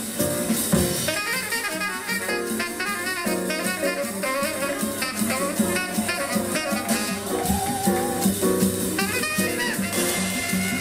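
Jazz music with saxophone and drum kit playing continuously.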